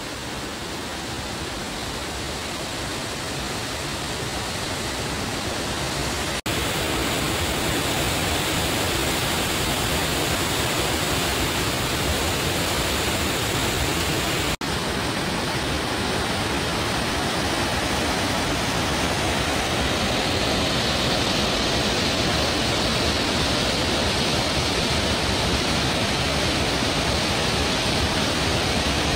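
Rushing water of a small mountain stream cascading over rocks: a steady, even rush that swells over the first few seconds and breaks off for an instant twice, about six and fourteen seconds in.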